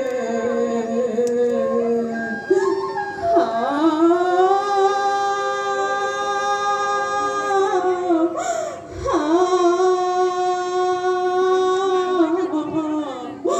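Women singing a slow devotional song in long held notes, each note swooping up into place, with two short breaks between phrases.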